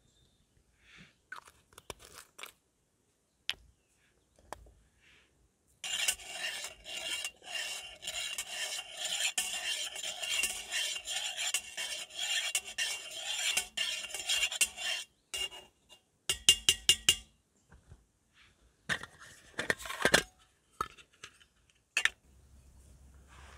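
Metal scraping and rubbing on cookware for about nine seconds, with a steady ringing metallic tone through it. Then comes a quick run of clicks and a couple of louder knocks.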